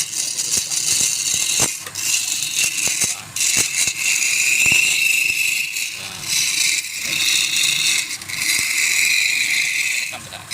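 Turning tool cutting a spinning workpiece on a wood lathe: a high hissing scrape in passes of a second or two, with short breaks between passes and scattered clicks.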